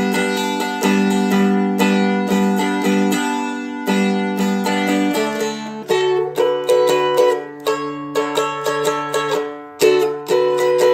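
A Seagull Merlin strumstick strummed and picked, with melody notes over ringing open drone strings. The bass drops about halfway through as the chord changes.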